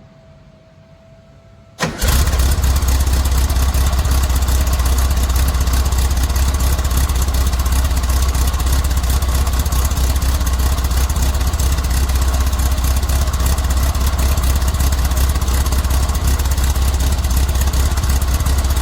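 VW Type 3 Squareback's air-cooled flat-four starting about two seconds in, catching at once and then idling steadily. It breathes through a Beetle exhaust with the stock quiet-pack muffler, which the owner finds muffled, as if restricted.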